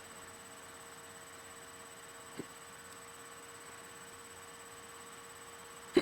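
Hiccups over a steady electrical hum: a faint short catch about two and a half seconds in, then a loud, sharp hiccup right at the end.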